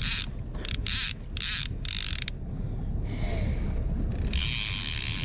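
Okuma Convector CV 30D line-counter trolling reel ratcheting in a series of short bursts while a large salmon is being fought, the last and longest burst near the end. A low rumble runs underneath.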